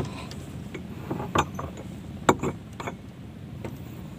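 A few sharp knocks and clicks from a small wooden fishing boat's loose deck boards and hull rocking on the swell, over a steady low rumble of wind and water.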